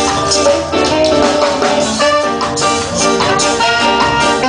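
Live reggae band playing an instrumental passage on drum kit, electric guitars and bass, with a trumpet playing a melody line.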